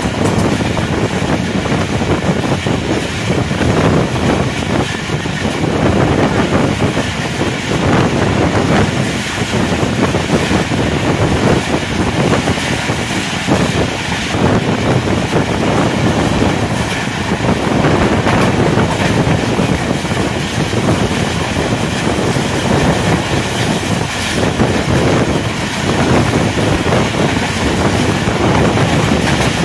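Passenger train's wheels running at speed over the track, heard at an open coach window: a steady rush of rail and wind noise with irregular clacks as the wheels cross rail joints.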